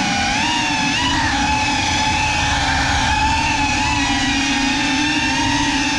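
Brushless motors and propellers of an FPV quadcopter whining steadily, heard from the camera on board. The pitch dips and wavers with the throttle in the first second, then holds steadier.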